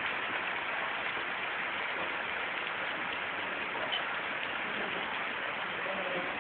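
Steady rain falling and hissing on wet, flooded ground.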